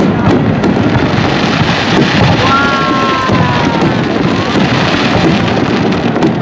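Aerial fireworks bursting: a dense, continuous run of booms with crackling and sputtering from the shells, and a short whistling tone about two and a half seconds in.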